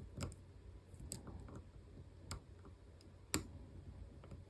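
Faint, scattered clicks of a lock pick and tension tool working the spring-loaded sliders inside an EVVA ICS high-security cylinder, with four sharper clicks about a second apart.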